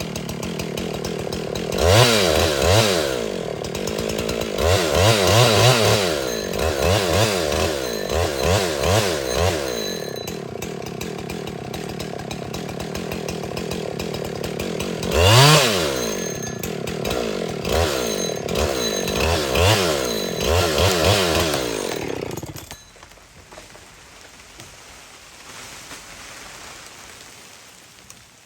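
Husqvarna 372XP two-stroke chainsaw cutting at high revs, its pitch rising and falling again and again as the throttle is worked and the chain loads up in the wood. The sound drops away sharply about 23 seconds in.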